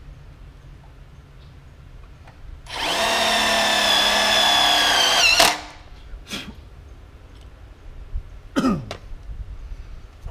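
Cordless drill running against an aluminum screen-enclosure frame: one steady run of about three seconds that starts near three seconds in, its pitch dipping just as it stops. Two short bursts follow, the second falling in pitch.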